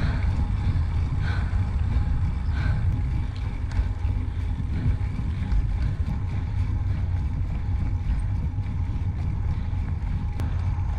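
Wind rushing over the microphone of a camera on a moving bicycle, giving a steady low rumble.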